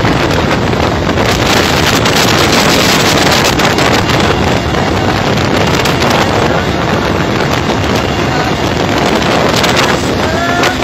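Loud, steady engine and rotor noise heard inside a crowded helicopter cabin in flight.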